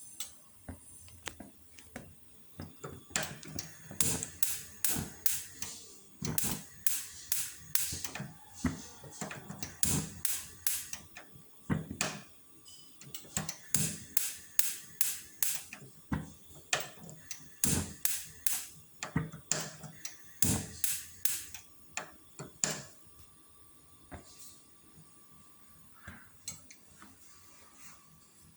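Sharp mechanical clicks in quick runs of four to six, with short pauses between runs, from work on a built-in gas stove. The clicking starts a few seconds in and stops a few seconds before the end.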